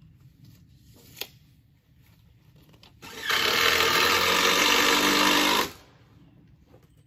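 Electric compound miter saw starting up and cutting through a wooden deck board, running loud and steady for about two and a half seconds from about three seconds in, then winding down. A sharp click sounds about a second in.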